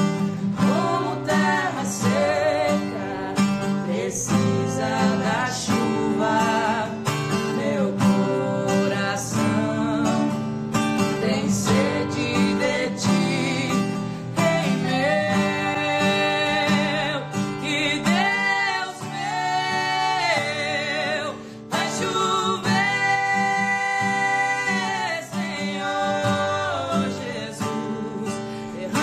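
A woman singing a Portuguese gospel worship song to guitar accompaniment, with long held notes in the second half.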